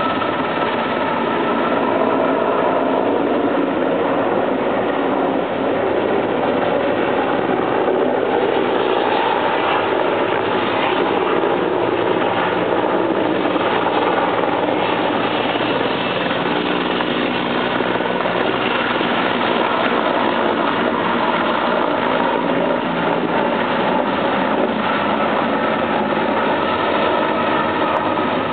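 Sikorsky S-64 Air-Crane firefighting helicopter flying overhead: a steady rotor and turbine drone that holds an even loudness throughout.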